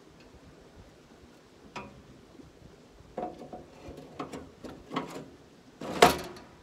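A series of short knocks and clicks, irregular and unhurried, with one louder clatter near the end.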